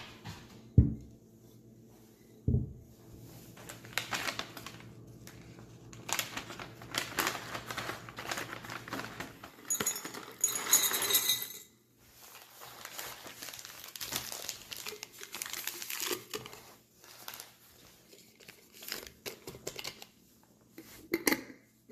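Crinkling and rustling of plastic drink-mix stick packets and a paper tea box being handled and packed into tall glass jars. Two dull thumps come near the start, and a light glass clink comes about halfway through.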